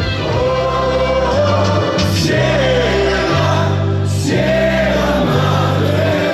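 Music with singing: a held, gliding vocal melody over sustained bass notes that change about once a second.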